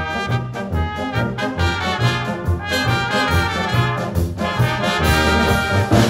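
Small brass band playing traditional German music live: trumpets carry the tune over a tuba's low bass notes on a steady beat, with a drum kit keeping time.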